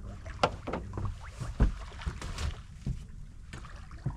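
Irregular knocks and thumps on a sailing yacht's deck under way, over a low steady rush of wind and water; the loudest thump comes a little before halfway.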